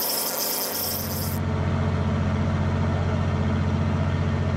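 A fishing boat's engine running with a steady low hum and a quick, even pulse, coming in about a second in, as a high hiss cuts off sharply.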